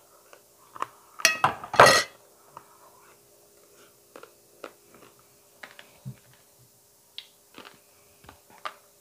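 A glass plate set down onto a plastic bowl: a loud, ringing clink and rattle about a second in, lasting under a second. After it come soft, scattered clicks and chewing from eating by hand.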